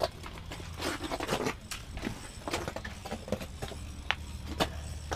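Handling clatter of fishing gear and camera: about a dozen irregular sharp clicks and knocks over a steady low hum.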